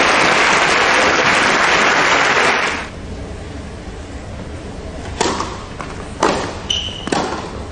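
Audience applause in an indoor hall that dies away about three seconds in. After it come a few sharp thuds on the court and a brief high squeak.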